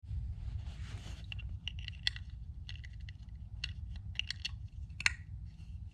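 Light handling noises of small hard objects: a string of irregular clicks, taps and small scrapes, the sharpest about two and five seconds in, over a steady low rumble.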